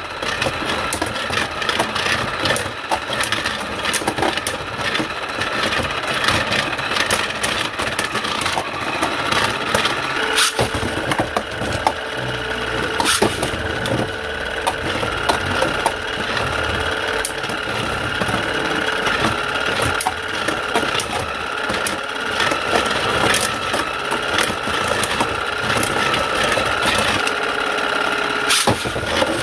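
The motor of a Beyblade Burst Surge Motor Strike stadium runs with a loud, steady whine, spinning the stadium's centre turntable. Over it, Beyblade spinning tops scrape and clack against each other and against the plastic stadium, with sharp clicks scattered throughout.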